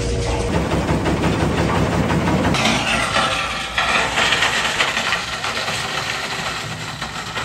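Heavy scrapyard machinery rumbling low, then from about two and a half seconds in a steady rushing noise of shredded car scrap pouring off the end of a stacking conveyor onto the pile, with an engine running underneath.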